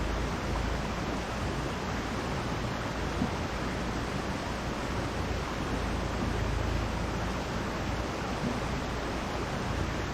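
Steady rushing noise of a mountain stream, even and unbroken.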